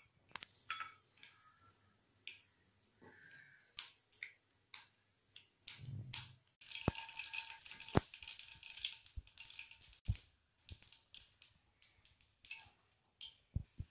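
Mustard seeds popping in hot oil in a kadai: scattered sharp pops throughout, with a brief sizzle in the middle. The spluttering shows the oil is hot enough and the seeds are crackling open, the tempering step before the pickle goes in.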